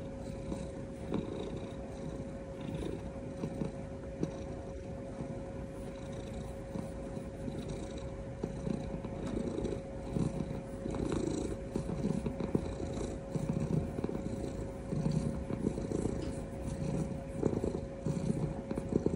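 House cat purring steadily, the low rumble swelling and easing with each breath about once a second and growing louder after the first half.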